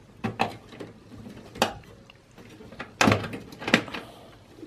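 Sharp plastic clicks and knocks of clips and connectors being worked by hand inside a desktop PC case, as memory modules and cables are freed from the motherboard, a few separate snaps with a quick cluster about three seconds in.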